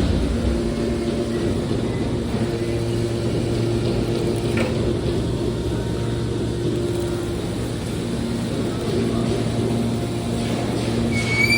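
A hydraulic aluminum can baler running, its power unit giving a steady low hum.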